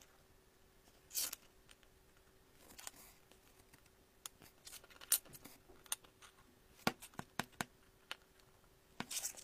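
Strips of metal staples being handled and set down on a wooden tabletop: scattered light clicks and taps as strips are placed and stacked against one another, with short sliding scrapes about a second in and near the end.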